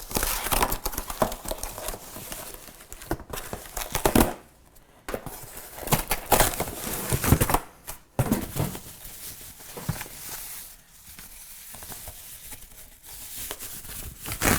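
Packaging being crumpled and torn off a cooker's steam rack during unboxing: irregular crinkling and rustling with a few louder tearing bursts, quieter in the last few seconds.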